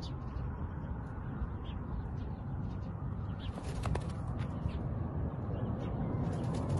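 Wind rumbling on the microphone, with a cluster of short rustles and rattles about halfway through and again near the end as a kestrel caught in a noose-covered wire trap (bal-chatri) beats its wings against the cage.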